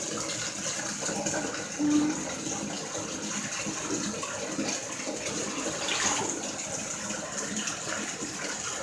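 Water running steadily from a tap into a bathtub during a dog's bath, with one short pitched sound about two seconds in.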